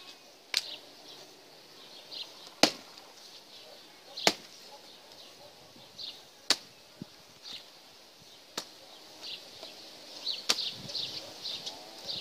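Hatchet splitting firewood on a wooden chopping block: six sharp chops of the blade into the wood, about one every two seconds.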